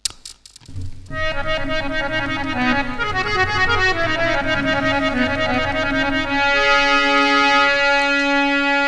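Harmonium playing a short melodic lead-in, then holding a steady chord from about six seconds in, after a few clicks in the first second.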